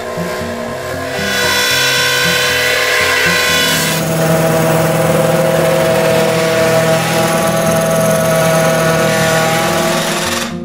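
A wood lathe spins a wooden blank while a Forstner bit, held in a drill chuck on the tailstock, bores into it: a loud, steady cutting and grinding noise that starts about a second in and stops abruptly near the end. Background music plays underneath.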